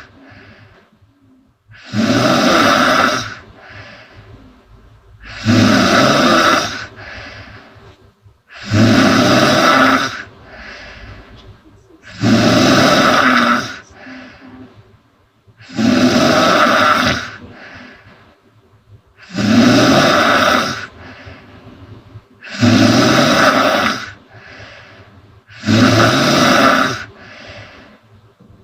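A woman snoring loudly in a steady rhythm, eight snores about three and a half seconds apart. Each loud snore lasts over a second and is followed by a fainter, shorter breath.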